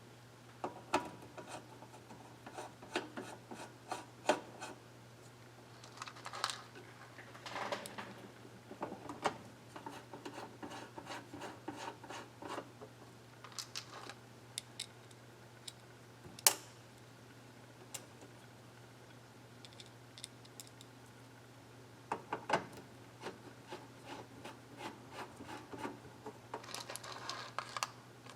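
Hand work at a bench: irregular clicks, taps and short scraping rubs of tools and parts being handled, with one sharp click about sixteen seconds in. A steady low hum lies under it.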